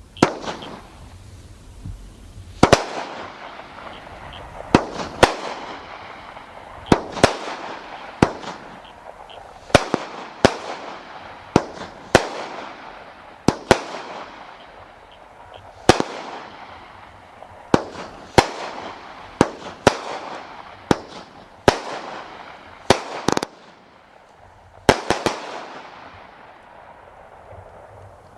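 A 200 gram 1.4G consumer fireworks cake firing its aerial shots: sharp break reports at roughly one a second, each followed by a fading hiss. The volley stops a few seconds before the end.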